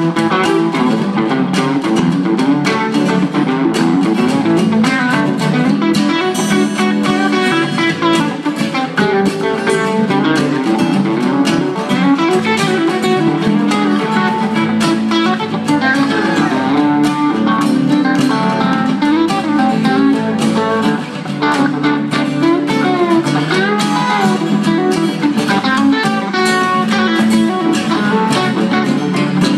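Guitar music: a continuous plucked melody line with some bending notes over a steady lower accompaniment.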